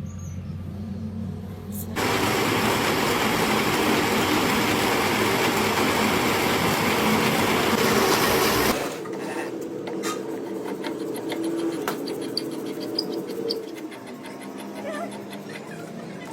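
Metalworking in a workshop on a broken circle drive shaft. A low machine hum gives way about two seconds in to loud, harsh, even noise that stops abruptly after about seven seconds. A quieter machine then runs on with a steady low tone and scattered light clicks.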